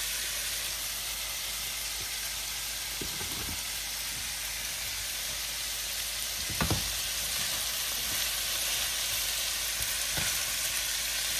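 Bitter melon with tomatoes and spices sizzling steadily as it fries in hot mustard oil in a pan, with a few knocks from stirring, the loudest about halfway through.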